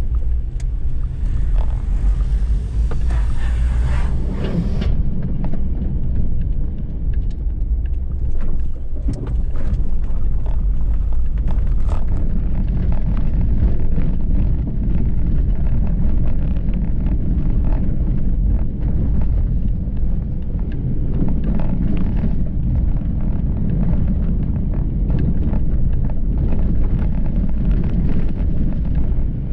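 Car driving, heard from inside the cabin: a steady low rumble of engine and tyres, with a hiss over the first few seconds, then frequent knocks and rattles as the car goes over a rough, potholed dirt road.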